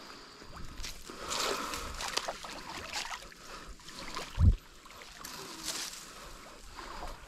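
Water splashing and sloshing as a small carp is brought in at the water's edge, with one short, loud low thump about four and a half seconds in.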